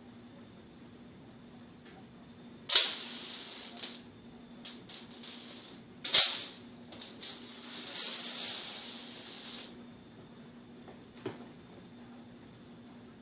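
Two sharp clacks about three and a half seconds apart, each followed by a fading rustle. Lighter clicks and a stretch of rustling fall between and after them.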